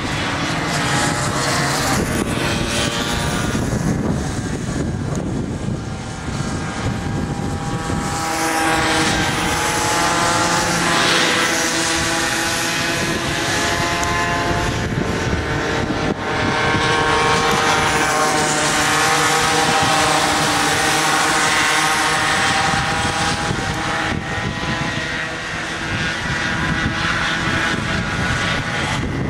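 Several kid karts' small two-stroke engines buzzing as they race around the track, overlapping, their pitch rising and falling as they speed up and ease off.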